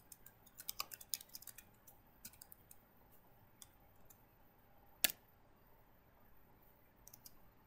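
Faint computer keyboard typing: a quick run of keystrokes in the first couple of seconds, then scattered single key presses, with one sharper keystroke about five seconds in.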